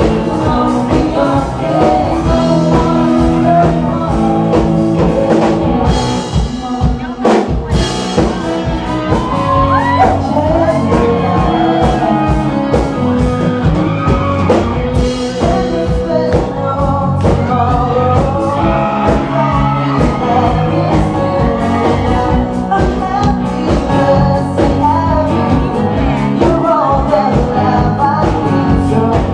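A man and a woman singing a pop duet live over a band with electric guitar.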